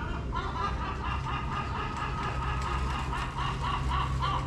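A rapid run of short, high-pitched calls, about three a second, lasting about four seconds over a steady low hum.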